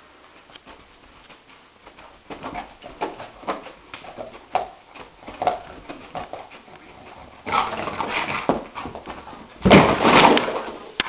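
A dog whimpering and yelping in its sleep, short cries about every half second, then a stretch of scuffling and a loud thump and clatter near the end.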